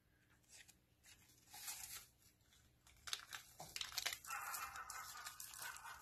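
A foil pouch crinkling in the hands and being torn open, with a denser tearing rustle from about four seconds in.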